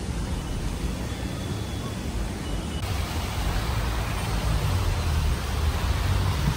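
Rain falling on a wet city street: a steady hiss blended with traffic noise, growing a little fuller about three seconds in.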